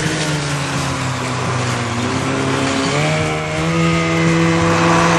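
Speedboat's outboard engine running flat out. Its note sags a little, then climbs again about three seconds in as it revs up.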